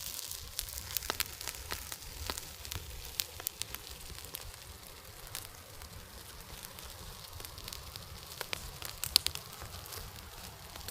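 Fire crackling, with irregular sharp pops over a steady hiss, as contaminated wooden beehive parts burn.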